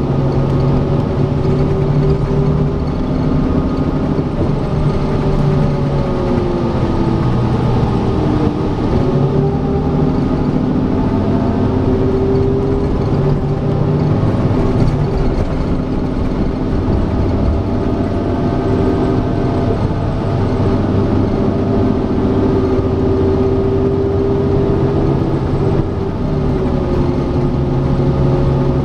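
Cummins Westport ISL G natural-gas engine and Allison B400R automatic transmission of a 2015 Gillig BRT 40' CNG transit bus heard from inside the cabin while under way, running with road noise. The steady drivetrain tones drift down in pitch about a quarter of the way in and shift again near the end as the bus changes speed.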